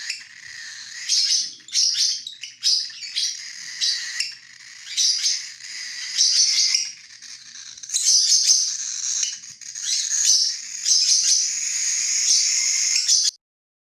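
Bird calls: a fast run of high, repeated chirps, some overlapping, that cuts off abruptly near the end.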